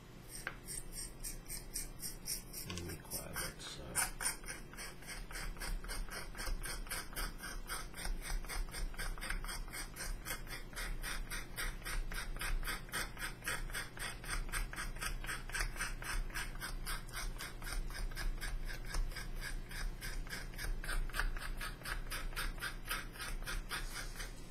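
A stick of brown chalk being scraped to make weathering powder: quick rhythmic rasping strokes, about four a second, kept up steadily.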